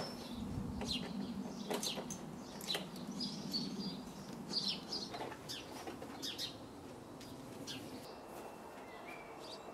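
Small birds chirping on and off, mixed with quiet clicks and rustles of hands working on the motorcycle's frame and parts.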